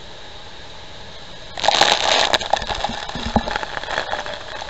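A steady rushing noise, then about one and a half seconds in a sudden loud blast of Niagara Falls spray and wind hits the microphone, with water spattering and low buffeting thumps that carry on.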